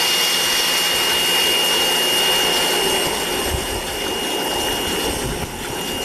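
WAP Ousada Plus 2200 electric pressure washer running with the trigger held: a steady high motor whine over the hiss of the jet spraying into a plastic cup.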